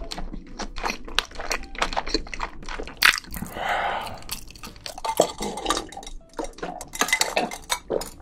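Close-miked eating sounds: sticky, crunchy chewing of sauced fried chicken as a dense run of small crisp clicks. Later come a few sharp clinks and handling noises.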